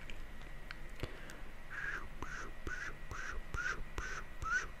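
Close-up ASMR mouth sounds: a few sharp wet clicks, then from about two seconds in a run of short squeaky mouth noises, each one rising and falling in pitch, about three a second.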